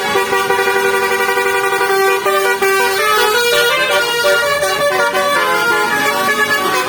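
Bus 'telolet' musical air horn (basuri horn) playing a tune: one note held for about two seconds, then a run of changing notes.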